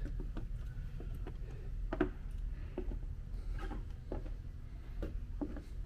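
Footsteps on a wooden boat deck: soft, irregular knocks over the steady low hum of a large hall.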